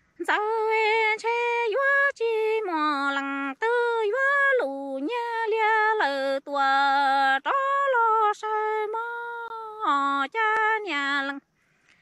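A woman singing kwv txhiaj, traditional Hmong sung poetry, unaccompanied: long held notes that step between a lower and a higher pitch, some with a wavering ornament, in short phrases with brief breaks.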